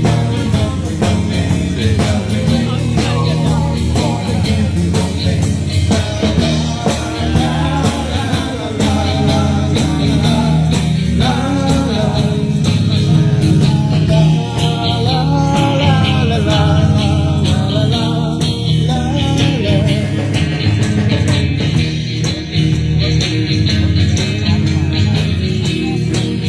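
Live rock band playing: bass, drums and electric guitar with a singer, loud and steady.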